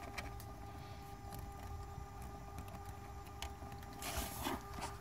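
Faint low rumble with a steady hum, a few light clicks, and a short rustle about four seconds in.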